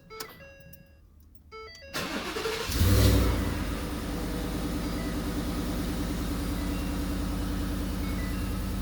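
Truck cabin warning chimes beep a few times, then the starter cranks and the Ford F-150 Raptor's twin-turbo V6 catches about three seconds in with a brief rev flare before settling into a steady idle.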